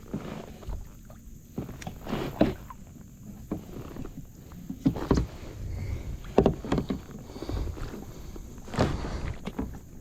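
Irregular knocks and bumps in and against a kayak, with low rumbling handling noise, while an angler moves around in the boat.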